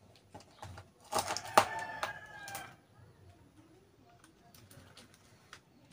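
A large sheet of manila paper crackles and rustles for about two seconds, starting about a second in, as it is unrolled and pressed flat onto a wall. A drawn-out pitched call sounds faintly behind it.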